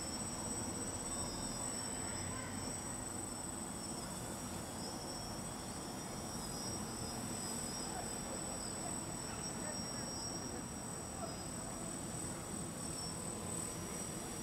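DJI F450 quadcopter in flight, fitted with more powerful replacement motors: a steady buzz from its brushless motors and propellers, with a faint wavering whine and a constant high-pitched tone over it.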